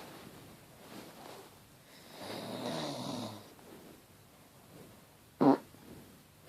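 A person snoring, with one drawn-out snore about two seconds in, then a short, loud fart near the end.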